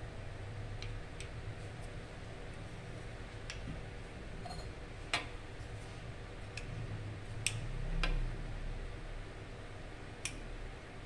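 Light, irregular clicks and taps of an aluminum denture stock tray being handled against a dental cast, about eight in all, the sharpest about five seconds in, over a steady low hum.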